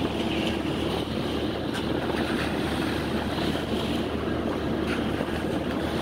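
Sea water rushing and foaming along the side of a moving ship, with wind buffeting the microphone and a steady low hum from the ship's machinery underneath.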